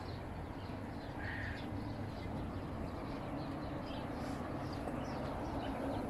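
Chickens and other penned birds calling in short scattered calls, one brief call standing out about a second in, over a steady low hum.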